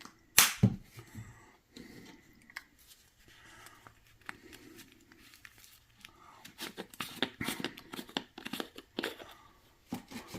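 One sharp knock, then after a pause a run of small clicks and crinkling rustles from spice containers being handled and shaken over the meatloaf mix.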